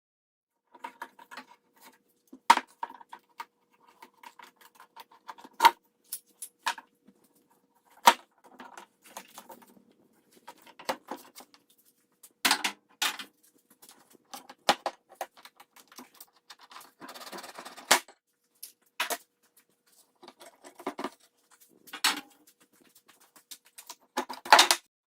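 Clamps being loosened and lifted off a glued-up wooden desk top: an irregular scatter of sharp clicks, knocks and clanks, with a short scraping rush about two-thirds of the way through.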